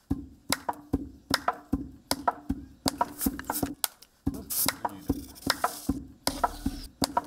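Long wooden pestles pounding rice in a wooden mortar: a steady rhythm of hollow thuds, about two to three a second, with two women striking in turn.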